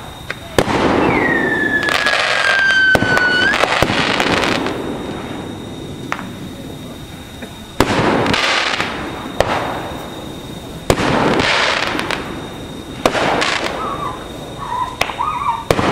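Consumer fireworks going off: a run of sharp bangs and crackling bursts in several clusters, with a whistle that glides slowly down in pitch in the first few seconds.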